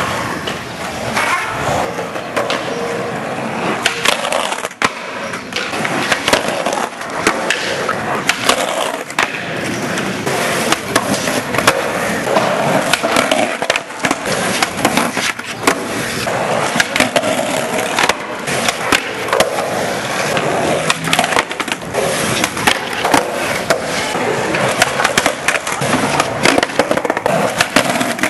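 Skateboard wheels rolling over rough concrete, with many sharp pops and clacks of the board: tails snapping, landings, and the board clattering onto the ground after missed flip tricks.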